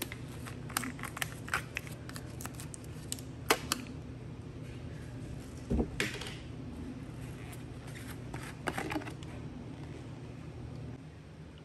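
A run of sharp clicks and taps, with a dull thump and a short rush of noise about six seconds in, over a steady low hum.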